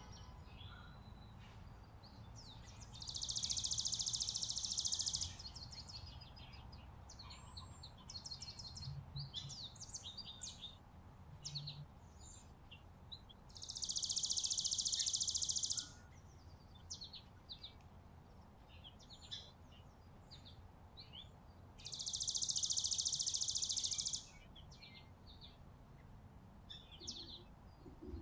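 Small songbirds at a winter feeder: three long, high, rapid trills about two seconds each, repeating roughly every nine seconds, with short high chirps and chip notes between them.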